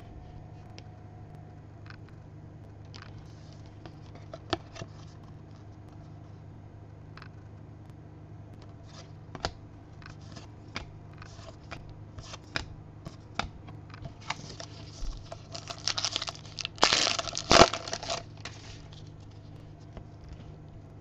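Cardboard trading cards being handled and flipped through: scattered soft clicks and snaps as cards are slid off the stack, then a louder, denser rustling scrape of cards in the last third.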